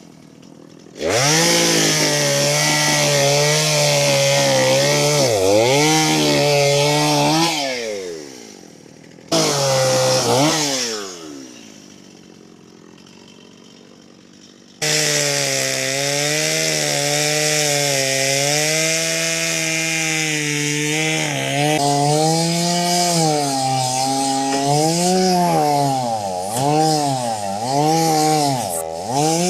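Handheld high-speed electric power tool running, its pitch dipping and wavering as it is worked under load. It is switched off about seven seconds in and spins down, runs briefly again and spins down, then starts again about halfway through and runs to the end with repeated dips in pitch.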